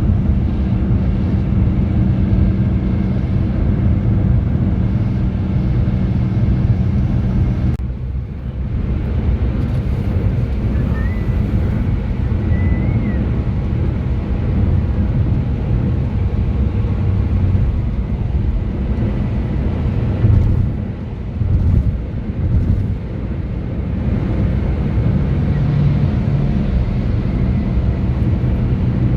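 Steady road and engine noise of a car driving on a highway, heard from inside the cabin. It is a continuous low rumble with a brief dip about eight seconds in.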